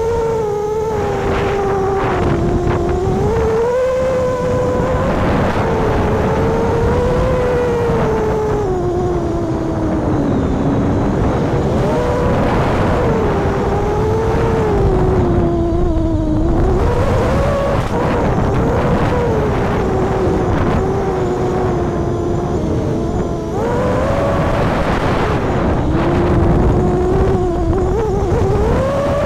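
FPV quadcopter's Emax 2207 2400 Kv brushless motors and propellers whining in flight, recorded by the onboard camera. The pitch rises and falls with the throttle, over a low rumble of wind on the microphone.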